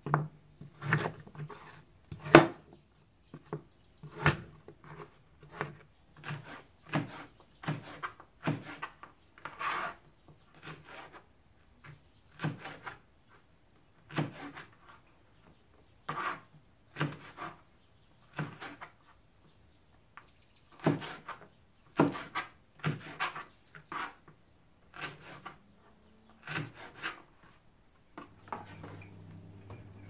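Kitchen knife chopping potatoes and then bell peppers on a plastic cutting board: sharp knocks of the blade striking the board, irregular, about one a second.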